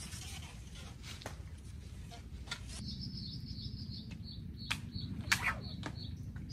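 Outdoor riverside ambience: a low steady rumble, with a high, repeated chirping call starting about three seconds in and a few sharp clicks.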